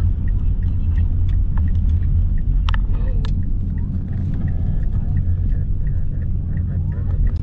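Steady low rumble of a car driving slowly, heard from inside the cabin: engine and tyre noise.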